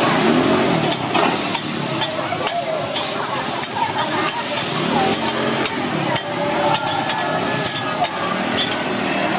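Food sizzling on a hot flat-top steel griddle while a metal spatula scrapes and taps against the plate in quick, irregular clicks as the food is stir-fried, with voices in the background.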